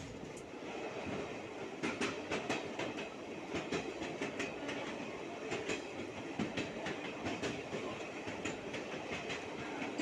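Train running on the track, heard from a moving coach: a steady rumble with the clickety-clack of wheels passing over rail joints. The clicks start about two seconds in and come in quick pairs and groups.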